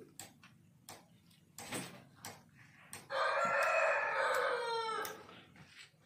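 A rooster crows once, a call of about two seconds starting halfway through that drops in pitch at the end. A few sharp clicks come before it.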